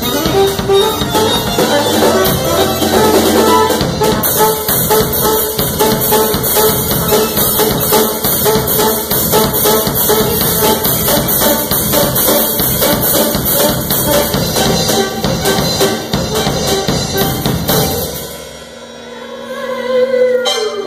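A small band with saxophone, trombone and drums playing a jazz-fusion tune, loud and busy. The music drops away about eighteen seconds in, then swells again near the end with a gliding pitch.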